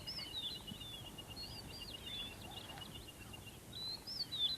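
Wild birds singing short, repeated whistled phrases, over a fast, even trill of ticks that stops about three-quarters of the way through, in quiet savanna ambience.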